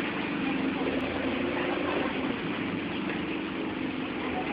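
A bus engine running steadily, a constant hum with a level pitch.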